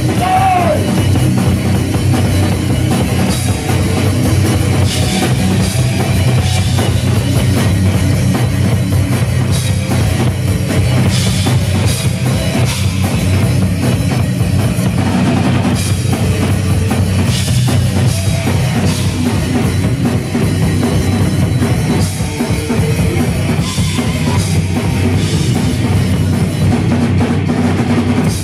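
Live metal band playing loud, with the drum kit most prominent: kick drum and cymbals driving under distorted electric guitars. A short pitched squeal bends near the start.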